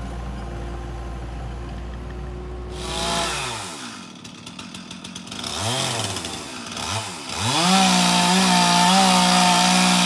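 Chainsaw revving, its engine pitch sliding down and up a few times, then held at full throttle from about three-quarters of the way in as it cuts into the trunk of the water oak for felling. Before the saw revs, a steady low hum.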